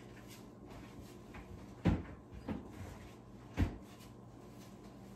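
Two dull knocks of a kitchen cupboard door being shut, under two seconds apart, with a lighter knock between them.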